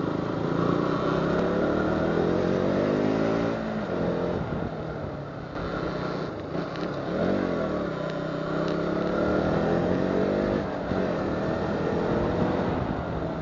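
KTM motorcycle engine under way, its revs climbing and then dropping about four seconds in. The revs climb again from about seven seconds and fall off again a few seconds later.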